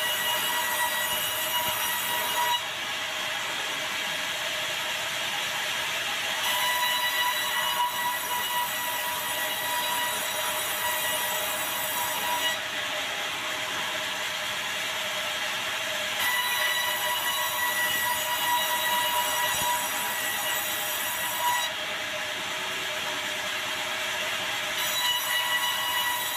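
Sawmill band saw cutting a log of dry, very hard bengkirai (yellow balau), a steady whine of several tones. A brighter, higher whine over it drops out for a few seconds three times and comes back.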